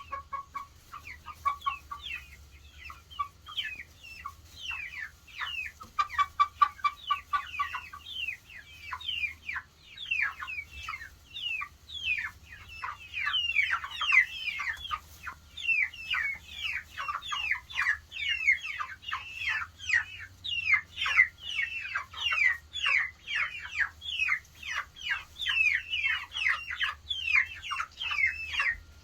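Young chickens peeping in distress at being left alone: a dense, continuous chorus of fast, downward-sliding crybaby chirps, growing busier after about ten seconds. A lower, steady honking call sounds under the chirps in the first couple of seconds and again around six to eight seconds in.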